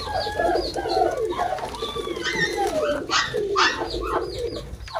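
Pigeons cooing with a wavering low call, under many short, higher chirping bird calls. A few short rustles come about three seconds in.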